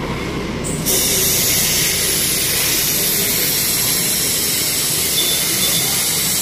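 Aerosol can of chain lubricant spraying onto a motorcycle chain: a steady, continuous hiss that starts about a second in.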